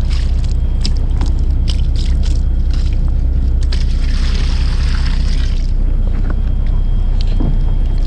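Seawater from a bucket hauled up on a rope poured into a plastic tub, splashing for about two seconds near the middle, with a few knocks and clicks around it. The boat's engine runs with a steady low drone underneath.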